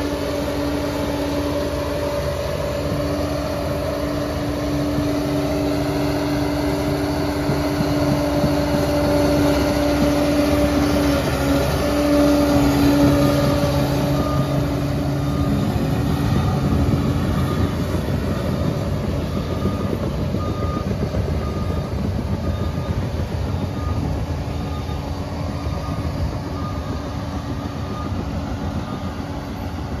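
Liebherr PR 746 crawler dozer working under load, its engine and drive running with a steady whine over the rattle of its tracks, growing louder as it comes close and then fading as it backs away. In the second half a reversing alarm beeps about once a second.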